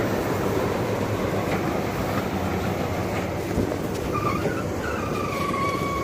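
Massey Ferguson 860 combine running close by, a steady engine and machinery drone. About four seconds in, a whine starts, drops a little in pitch and then holds steady.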